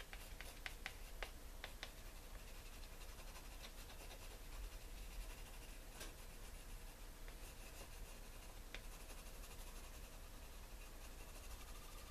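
Watercolor pencil scratching over textured watercolor paper, faint. A quick run of short strokes comes about the first two seconds in, then softer, sparser marks.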